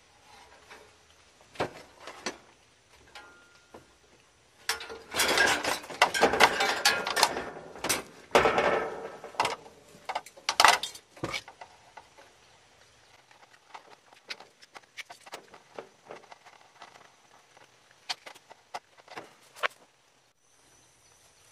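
Handling noise as the lead wires of a condenser fan motor are gathered and moved about: scattered clicks and taps, with a stretch of busy rustling and light clatter in the middle.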